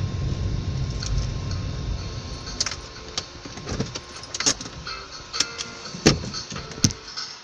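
Car coming to a stop, its low road and engine rumble fading away over the first few seconds. Then seven or eight sharp clicks and light rattles, spaced irregularly, from something handled inside the cabin.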